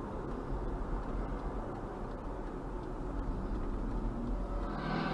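Steady road and engine rumble of a car driving at about 28 mph, heard from inside the cabin. A brighter hiss sets in near the end.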